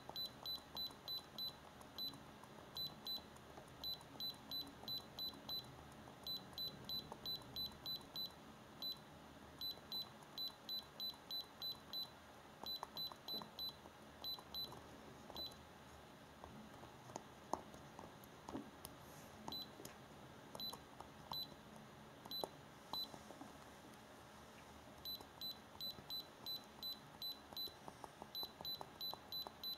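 Short high beeps from an iCarsoft i930 handheld car diagnostic scanner as its menu is scrolled, coming in quick runs of about four a second. The runs break off for several seconds in the middle, where only a few scattered beeps and soft clicks are heard.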